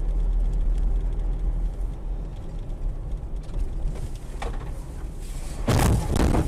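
Steady low rumble of a car's engine and road noise heard from inside a moving car, with a short burst of noise about four seconds in and a loud, sudden noisy burst near the end.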